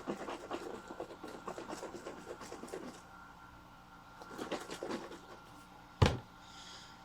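Handling noises while mixing fuel: a run of small scratchy clicks and rattles, then one sharp knock about six seconds in, as a container is set down or capped.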